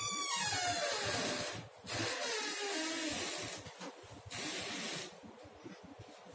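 Marker pen strokes on a whiteboard, scratchy hiss in three stretches of a second or so each as words are written, with a falling whine gliding down under the first three seconds.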